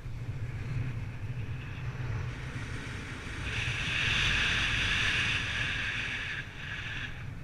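Wind rushing and buffeting over the microphone in flight, a steady low rumble with an airy hiss that grows louder a little past halfway and drops back about a second before the end.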